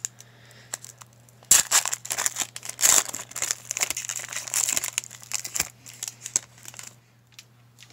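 Foil trading-card pack wrapper crinkling and tearing as it is ripped open by hand. The crinkling is busiest from about a second and a half in to about five and a half seconds, then a few light rustles follow.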